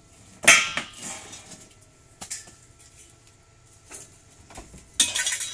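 A welded steel-tube window frame clanking and scraping against a steel-topped workbench as it is handled: a loud ringing clank about half a second in, a few lighter knocks, then a burst of clattering near the end.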